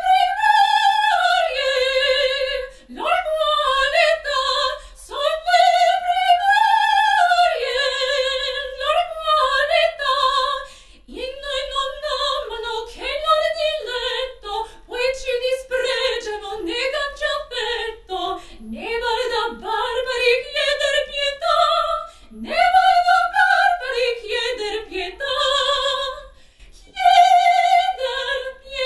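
A solo female opera voice in the soprano range, singing phrases of held notes with wide vibrato and several swooping upward slides, with short breaks between phrases.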